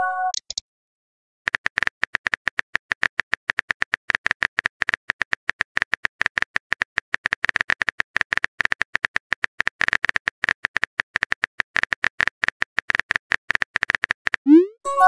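Texting-app sound effects: a short message chime, then a long run of rapid phone-keyboard typing clicks, the cue that the next message is being written. Near the end a short rising swoosh and another chime mark the message being sent.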